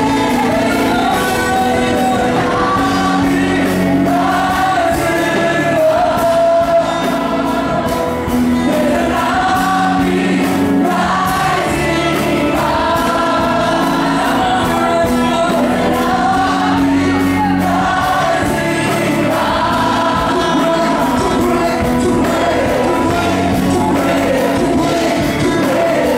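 Live gospel praise song: a lead singer and a choir singing together over a keyboard and band, with sustained low chords beneath.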